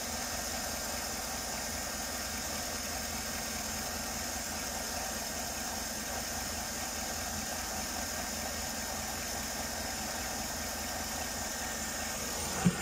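Chevrolet Tahoe's V8 engine idling steadily, heard from close to the engine bay, with the electric cooling fan switched off.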